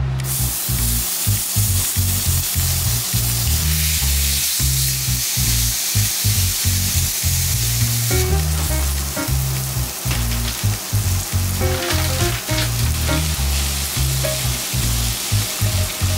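Steaks searing in a hot cast-iron skillet, a steady loud sizzle, over background music with a heavy bass beat.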